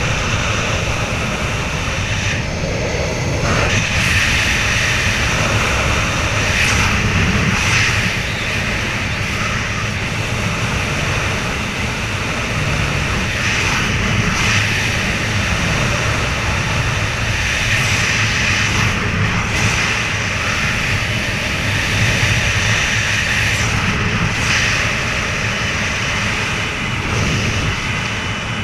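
Wind rushing steadily over the microphone during a descent under an open parachute canopy, a loud rumbling noise that swells and eases a little every few seconds.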